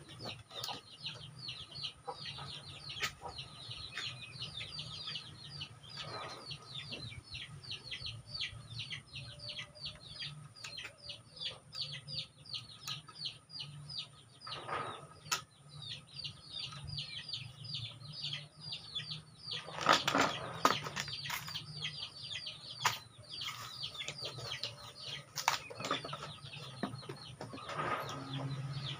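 Young chickens peeping steadily: a stream of short, high, falling peeps, several a second. About two-thirds of the way through there is a brief louder rustling flurry.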